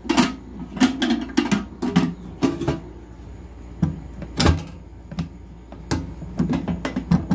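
Steel ammo can knocking and rattling against a bike's rear rack as it is worked into place by hand: a run of irregular clunks, the loudest about four and a half seconds in.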